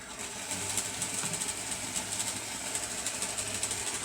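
HO scale model diesel locomotive running on the track: a steady electric motor whir with a fast run of light clicks from the wheels and drive.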